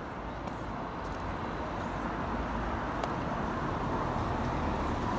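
Road traffic: a motor vehicle running and drawing nearer, growing steadily louder.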